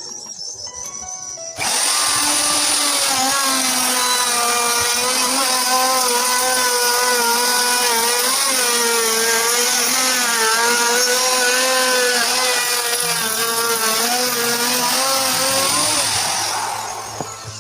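Electric power tool running on wood for about fifteen seconds. It starts abruptly, its motor pitch wavers slightly as it works, and it winds down near the end.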